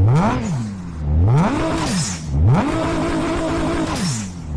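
Car engine revved in quick blips, its pitch sweeping up and straight back down. About halfway through it is held at high revs for over a second, then drops back near the end.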